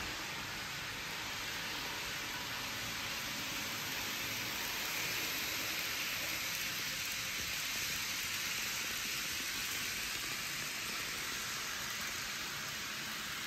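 Z scale model train running on its track, a steady faint hiss-like whir that grows a little louder around the middle as the cars pass close.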